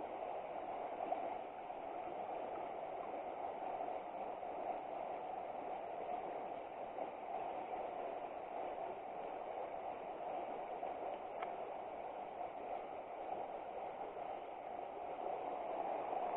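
River water flowing, a steady even rushing noise, with a faint click about eleven seconds in.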